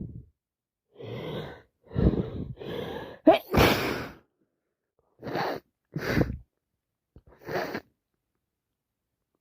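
A woman congested from a cold that has turned into sinusitis, sneezing: a couple of catching in-breaths, then a sharp, wet sneeze about three seconds in, followed by three shorter breathy bursts.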